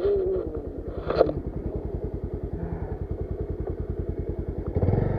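Motorcycle engine running at low revs with an even, rapid chugging pulse while riding over a rough dirt track. A sharp knock comes about a second in, and the engine gets louder near the end.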